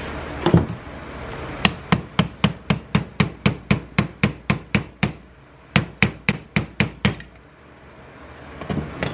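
A hammer tapping rapidly on a part of a Yamaha Blaster engine being disassembled: one knock, then about fourteen quick even taps at roughly four a second, a brief pause, and six more.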